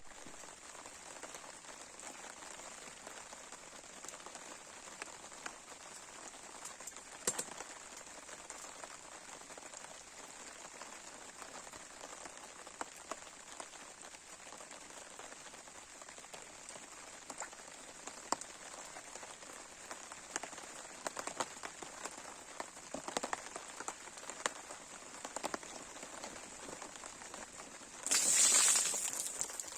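Bonfire burning with a steady hiss and scattered sharp crackles and pops. A louder rush of noise comes near the end.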